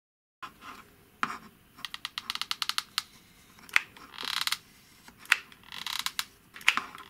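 Hot glue gun (Bosch PKP 18 E) clicking and ticking as its trigger is worked to feed the glue stick, with a fast run of ticks about two seconds in. Short rasping bursts come three times in the second half as the nozzle is drawn along the wooden rail.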